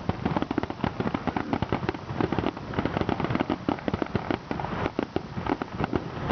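Fireworks display going off in a rapid, continuous barrage of bangs and crackles, many a second.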